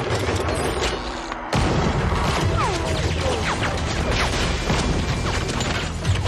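Action-film gunfight sound mix: gunfire, smashing and heavy impacts. After a short dip it comes in suddenly and loudly about a second and a half in, and stays dense with hits.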